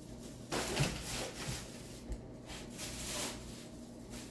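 A plastic shopping bag rustling as items are handled and pulled out of it, in a few short spells with a faint knock or two.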